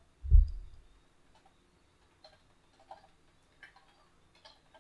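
Computer keyboard keys clicking faintly a handful of times, well under a second apart, as an email address is typed. A loud low thump comes just after the start.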